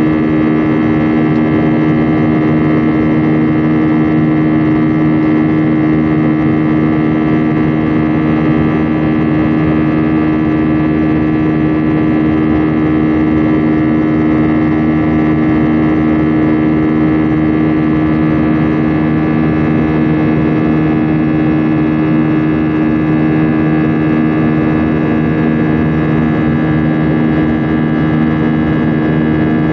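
Airbus A320 jet engines heard inside the cabin by the wing during the climb after takeoff: a loud, steady drone with several steady humming tones.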